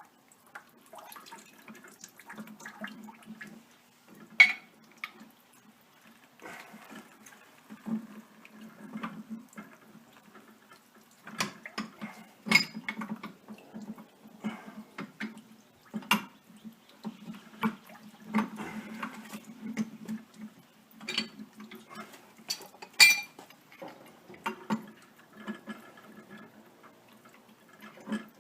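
Plumber's pliers scraping and clanking on the metal fittings of a water pressure regulator while its bottom nut is worked loose, with several sharp metallic knocks. Water trickles and drips underneath.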